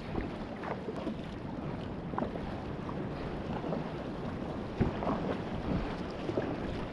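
Water splashing and washing around a Viking Reload sit-on-top kayak as it comes in through the surf, in irregular bursts with a louder splash about five seconds in. Wind noise on the microphone sits underneath.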